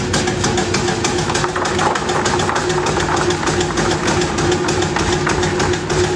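Electric meat dicing machine running while cutting meat into cubes: a steady motor tone under a rapid, even clatter from the blades.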